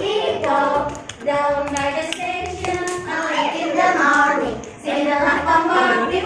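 A song being sung, with hand clapping.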